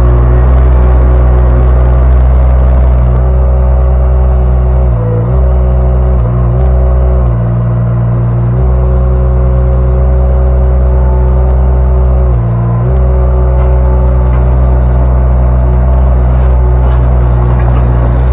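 Derette V1000 mini skid steer engine running steadily at close range, dipping briefly in pitch four times as the machine works.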